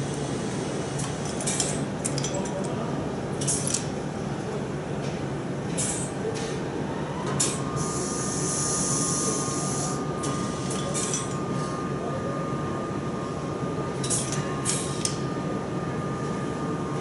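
Factory hall machinery running with a steady hum, broken by repeated short hisses and light metal clinks. A steady whine sets in about seven seconds in, and a longer hiss follows just after it.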